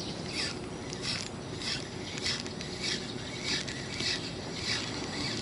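Spinning reel being cranked to retrieve a lure, each turn of the handle giving a short whirr, roughly three turns every two seconds at an even pace.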